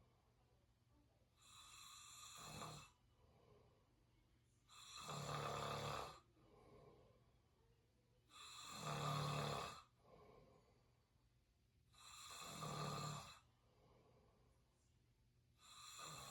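A person snoring through an open mouth: four regular snores about three and a half seconds apart, each lasting about a second, with softer breaths out between them and a fifth snore starting at the very end.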